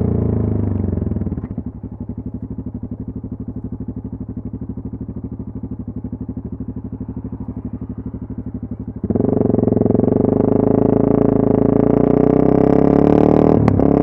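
Yamaha MT-03's 660 cc single-cylinder engine rolling off as the bike slows, then idling with a steady, rapid beat. About nine seconds in it opens up suddenly as the bike pulls away under throttle, with a short click near the end.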